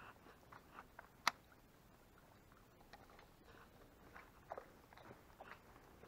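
Near silence broken by a few faint, scattered clicks and taps, with one sharp click about a second in.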